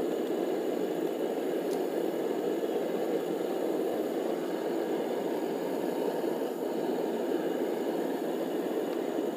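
Blacksmith's forge running with a steady rushing noise while steel cable heats for forge welding.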